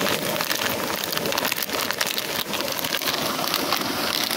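Foil-lined plastic snack packet crinkling and rustling continuously as it is handled and squeezed, a dense, irregular crackle.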